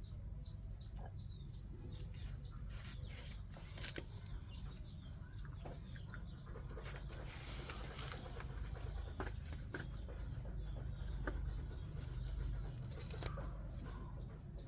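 A small bird's quick run of short, falling chirps in the first couple of seconds, then scattered clicks and taps over a steady low rumble.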